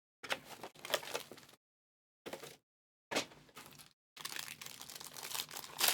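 Packaging for trading cards being opened by hand: plastic wrapper crinkling and tearing with small cracks and clicks, in short bursts broken by silent gaps.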